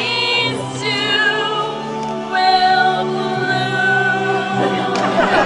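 Several voices singing a song with musical accompaniment, ending on a long held note from about two seconds in.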